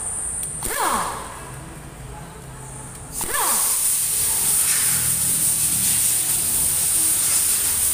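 Compressed air hissing steadily from a pneumatic hand tool, starting about three seconds in. Before that come two short falling whines.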